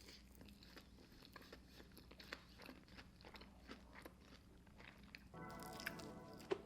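Faint close-up chewing and crunching of fettuccine alfredo topped with crushed hot Cheetos: scattered soft crunches and mouth clicks. A short hum sounds about five and a half seconds in.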